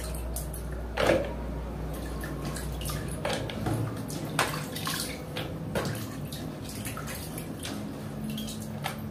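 Hands swishing and rubbing sweet potato leaves in a plastic tub of water: sloshing and dripping, with a louder splash about a second in and several smaller ones after.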